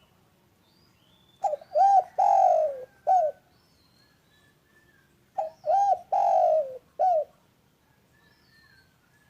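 Spotted dove (derkuku) cooing: two phrases about four seconds apart, each of four notes: a short note, a rounded coo, a long falling coo and a short closing note. Faint higher chirps of small birds twitter in between.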